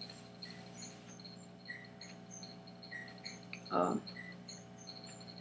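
Quiet room tone: a low steady electrical hum with faint, scattered high-pitched chirps, and one brief murmur from a person about two-thirds in.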